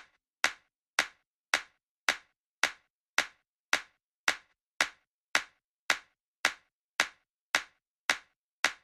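Drum-machine click, like a wood block or rimshot sample, repeating steadily on its own about twice a second (near 110 beats a minute) as the rest of the electronic loop drops out.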